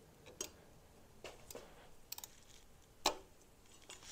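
Sparse light clicks and knocks from a socket wrench on the crankshaft bolt as an engine is turned over by hand, a few quick ticks in a row about two seconds in and one louder knock just after three seconds.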